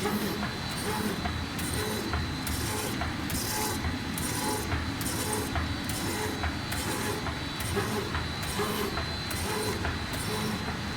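Web-fed hot foil stamping machine running at speed: a steady mechanical clatter, one stamping stroke about every half second, over a constant high whine.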